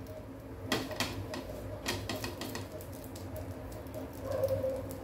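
Faint, irregular crackling and ticking of a chapati heating on a hot non-stick tawa, over a low steady hum.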